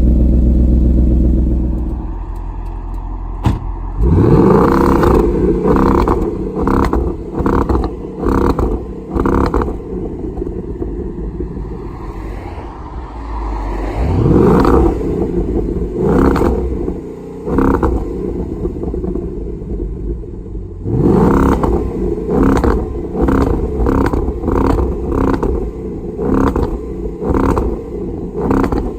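2011 Mustang GT's 5.0 V8 engine revved up three times, each climb followed by a run of regular on-off stutters, the sound of the engine held against the newly fitted MSD two-step rev limiter.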